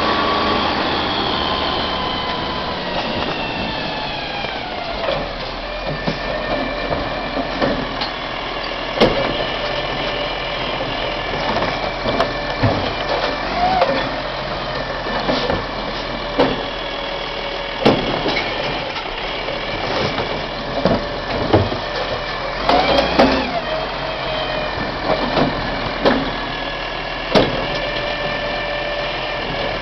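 International ACCO side-loading garbage truck: its engine and hydraulics run with a whine that falls in pitch as it pulls up, then rises again a little past the middle as the arm works. Through most of it come repeated sharp clunks and bangs of the lifting arm and the plastic wheelie bins being grabbed, tipped and set down.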